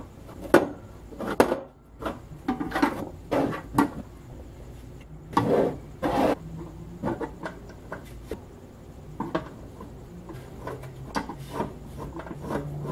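Handling noise from fitting a DJ light fixture and its mounting bracket onto a stand: irregular clicks, knocks and rubbing scrapes of hardware being positioned, with a longer scrape about six seconds in.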